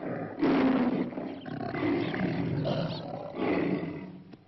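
A black panther roars three long times, the first starting about half a second in and the loudest.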